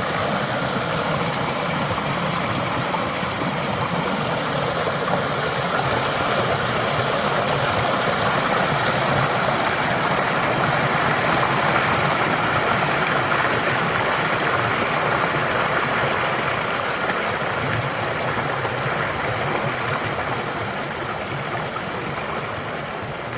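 Creek water rushing and splashing over rocks, a steady loud rush that swells a little midway and eases toward the end.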